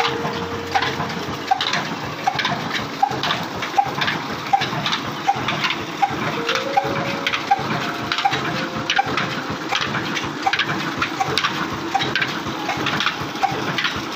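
Pumped water gushing from an outlet pipe and splashing into a concrete channel, over a steady regular beat about twice a second from the old Ruston engine driving the pump.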